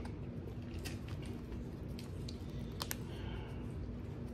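Scattered small clicks and taps of hands handling food and plastic sauce cups while a sandwich is put together, with a pair of sharper clicks about three seconds in, over a steady low hum.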